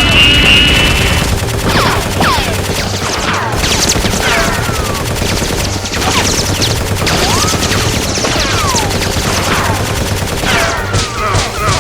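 Continuous automatic gunfire sound effects, a dense rattle of shots laced with repeated falling whistles like bullets ricocheting and whizzing past.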